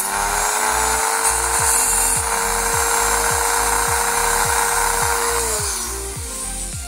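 Handheld power tool cutting the plastic of a car dashboard air vent: a steady motor whine with a cutting hiss, winding down about five and a half seconds in.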